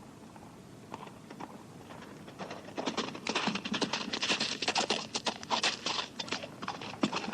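Horse hoofbeats coming closer in quick, dense strikes, faint at first and loud from about three seconds in.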